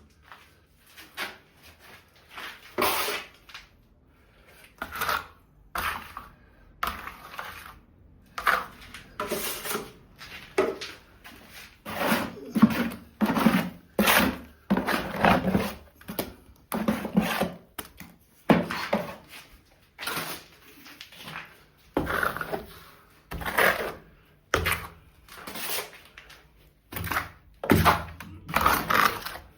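Repeated rubbing strokes of a hand tool worked back and forth on a surface, about one a second, with short pauses in the first few seconds.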